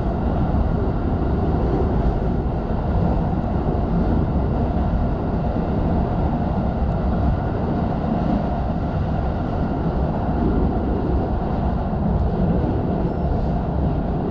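Running noise of a JR Joban Line commuter train crossing a steel truss bridge at speed, heard from inside the carriage: a steady low rumble of wheels on rails with no distinct beat.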